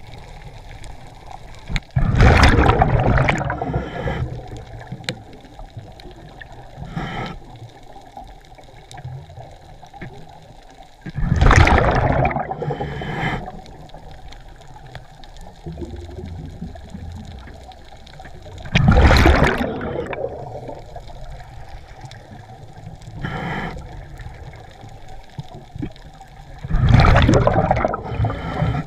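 Scuba regulator breathing underwater: four long rushes of exhaled bubbles roughly every eight seconds, with shorter, quieter bursts between them.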